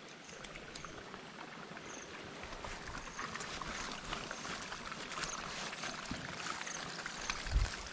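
Water sloshing and trickling, with many small splashes and clicks, and a low thump near the end.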